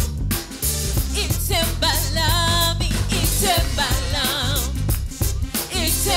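Live gospel worship music: an electric keyboard and band with a steady beat, joined about a second in by a woman's lead vocal with a wavering vibrato.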